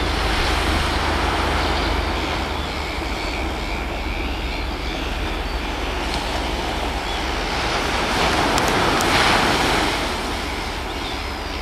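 Diesel locomotive and passenger train running past at a distance, a steady drone with wind buffeting the microphone. The drone swells louder for a couple of seconds about eight seconds in.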